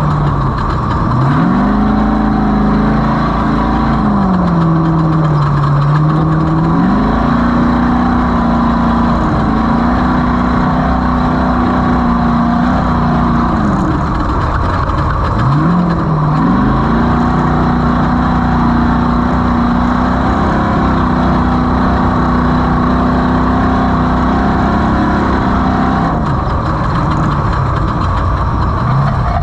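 The SNORE Skull Rush 250's engine running under way. Its note holds steady for long stretches and drops, then climbs back, several times: about a second in, around five seconds, around fifteen seconds and again near the end.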